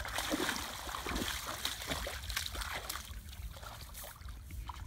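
Water splashing and trickling as a series of small, irregular splashes, busiest in the first few seconds and easing off toward the end.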